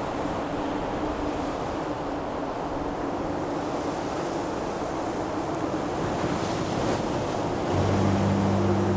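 Strong wind blowing over the microphone with surf breaking on a rocky coast, a steady rushing noise. Near the end a low held music note comes in under it.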